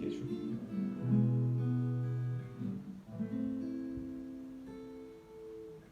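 Acoustic guitar strumming the closing chords of a song, each chord left to ring and fade: one about a second in, another at about three seconds, dying away toward the end.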